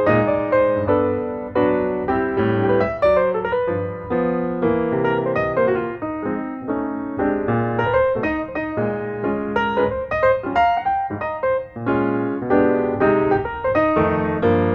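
Background piano music: a keyboard playing a steady run of notes and chords.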